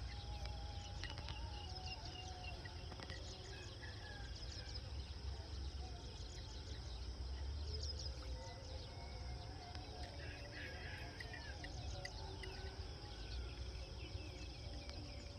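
Rural outdoor ambience: a steady high insect drone with scattered short bird chirps throughout, over a low background rumble.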